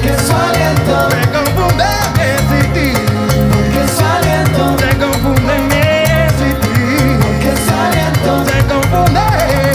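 Live Afro-Caribbean funk band playing an up-tempo salsa-like groove: electric bass, electric guitar, drum kit and hand drums.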